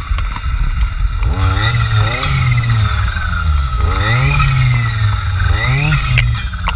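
Jonsered FC 2256 W clearing saw's two-stroke engine, driving a circular saw blade, revved up to full throttle and dropped back again about four times in quick succession, as in clearing work.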